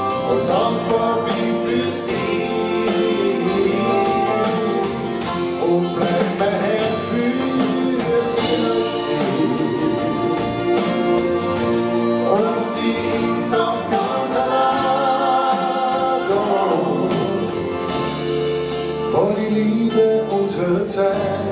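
Live band playing a slow pop ballad, with violin, electric bass, drums and trumpet under sung vocals.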